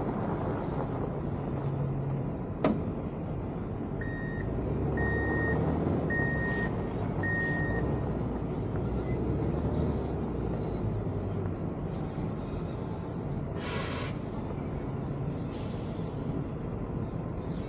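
Heavy diesel engines running steadily, with a backup alarm beeping four times about a second apart a third of the way in, and a short hiss of released air near the end.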